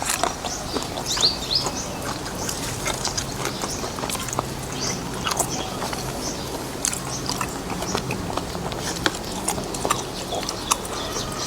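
Person eating noisily: chewing with frequent wet smacks and clicks of the mouth.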